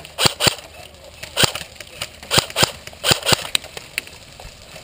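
Airsoft rifle shots fired one at a time: about eight sharp cracks, several in quick pairs a fifth of a second apart, with pauses of up to a second between them.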